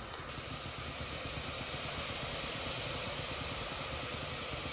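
Finely sliced onions frying in hot oil with a steady sizzle, as they cook down toward caramelizing.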